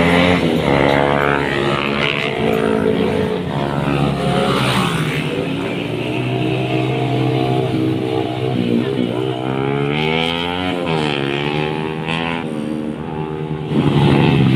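Several motorcycle engines revving and passing close by, their pitch rising and falling as they accelerate past; louder again near the end.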